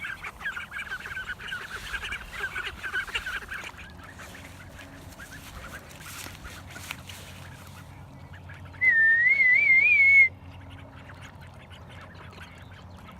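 Call duck ducklings peeping rapidly and repeatedly for the first few seconds. A loud, wavering whistle follows, lasting about a second and a half.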